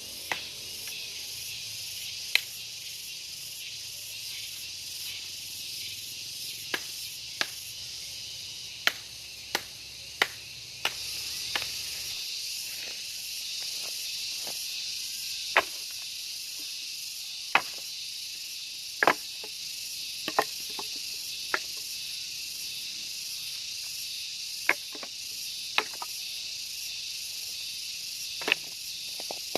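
Steady high-pitched drone of insects, with sharp dry cracks at irregular intervals, about fifteen in all, from dry fallen calliandra branches snapping as they are gathered for firewood.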